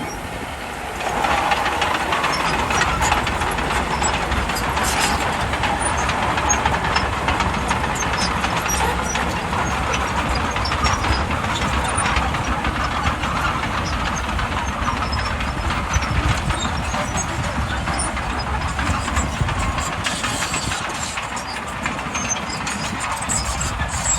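Bulldozer engine running steadily, with a continuous mechanical clatter over a low rumble; the level drops briefly at the start.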